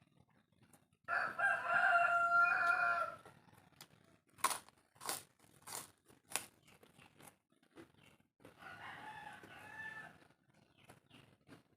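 A rooster crows about a second in, one long call of about two seconds, and a fainter crow follows near the end. In between come a few crisp crunches of chewing.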